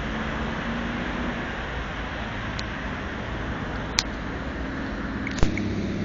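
Steady road traffic noise, with a low engine hum under it. Two sharp clicks about four and five and a half seconds in, the second the loudest.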